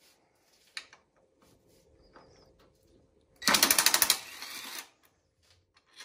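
Cordless drill's torque clutch ratcheting in a rapid, loud banging for just under a second as it tries to undo a stiff clutch-cover bolt on a small engine, then the drill whirring on briefly before stopping. The setting is too low for the bolt's tightness.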